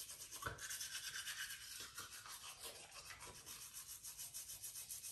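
Manual toothbrush scrubbing teeth, quick back-and-forth strokes at about five a second, faint and hissy with foamy toothpaste.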